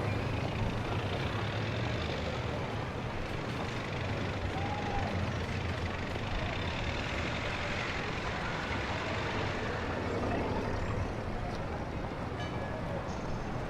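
Added street-ambience sound effect: a steady rumble of motor traffic under a continuous hiss.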